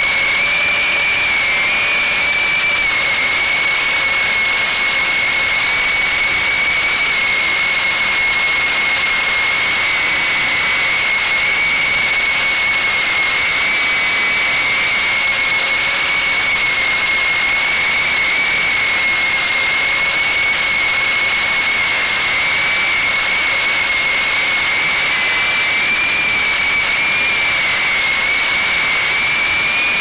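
Brushless motors and 2-inch propellers of a GEPRC Cygnet FPV drone whining steadily at a high, nearly constant pitch in flight, over a steady hiss of air.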